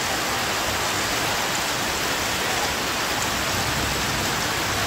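Heavy rain pouring in a storm, a steady loud hiss with no letup.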